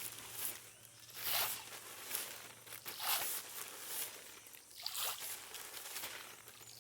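Handfuls of soybean and cracked-corn bait thrown onto the water, landing in short splashy patters several times over a few seconds.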